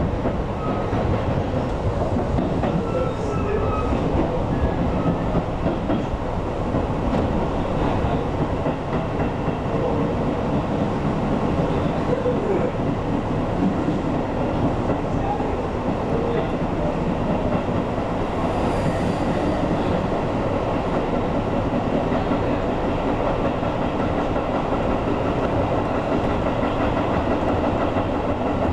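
Tobu 8000-series electric train running along the track, heard from inside the front cab: a steady noise of wheels on rails and running gear, holding an even level throughout.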